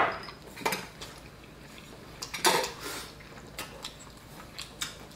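Chopsticks clinking and tapping against ceramic bowls and stainless steel pots while eating: a handful of scattered clinks, with a louder one about two and a half seconds in.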